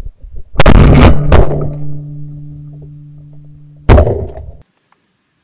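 Shotgun shots fired at flaring mallards, heard close up and heavy: one about half a second in, another just under a second later, and a third near four seconds, with a low steady hum between them that cuts off suddenly after the last shot.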